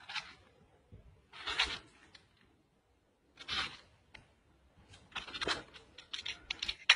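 Small knife scoring through a pomegranate's rind: short scratchy cutting strokes a second or two apart, then several quicker ones near the end.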